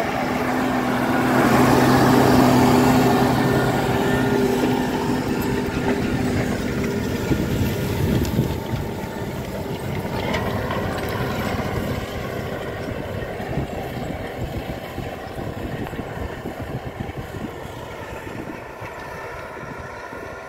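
A T-150K tractor's YaMZ V-type diesel engine running steadily under load, pulling a cultivator past close by. Its note is loud and clear for the first few seconds, then fades gradually as the tractor moves away.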